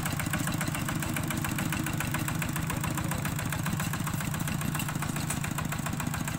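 Single-cylinder diesel engine of a two-wheel walking tractor running steadily as it pulls a trailer, with a fast, even chugging.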